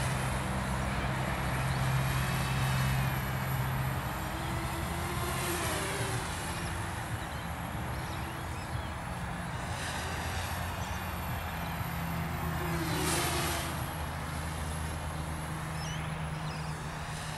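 Radio-controlled model airplane flying some way off. Its motor's pitch slowly rises and falls over several seconds, with brief louder swells as it passes. A steady low hum runs underneath.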